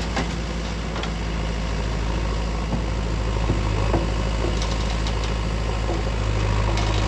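Backhoe loader's diesel engine running steadily with a deep hum, with a few short knocks and clanks now and then.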